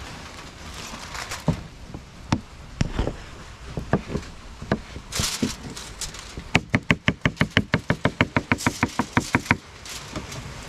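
Kitchen knife chopping ripe plantain on a wooden cutting board. First come a few separate knocks of the blade on the wood, then a fast, even run of about thirty chops, roughly ten a second, for about three seconds before they stop.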